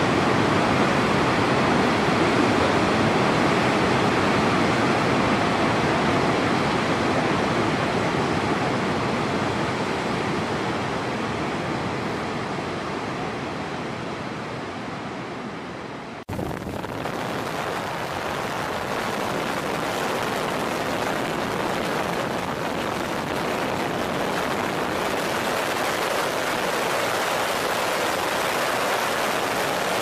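Steady rushing of a high-pressure water jet discharging from a dam outlet, fading a little. About halfway through it cuts off abruptly and gives way to a different steady rushing noise.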